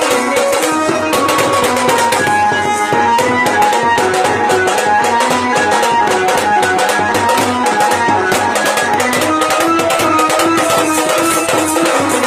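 Instrumental music: a melody over a fast, steady drum beat.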